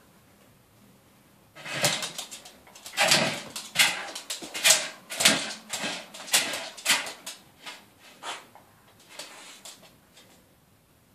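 Small terrier rummaging at a mesh wastebasket on a wooden floor: a quick, irregular run of scuffs, scrapes and knocks, starting about a second and a half in and thinning out near the end.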